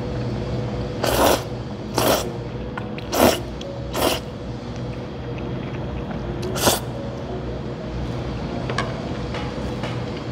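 Jajangmyeon noodles slurped in five short, loud slurps: four about a second apart, then one more a couple of seconds later, over a steady low background hum.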